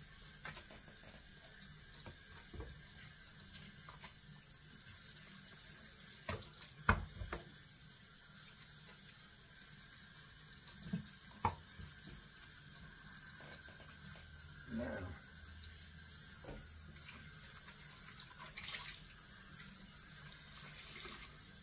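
Kitchen tap running faintly into a sink, with a handful of short, sharp knocks scattered through.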